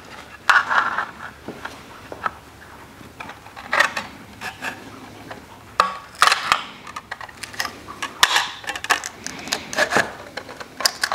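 Tin snips cutting a strip from a thin aluminum sheet: a run of irregular sharp metallic snips and crunches as the blades work down the line.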